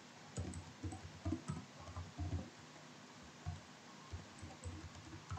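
Computer keyboard being typed on: short, irregular keystroke clicks, a few a second, fairly faint.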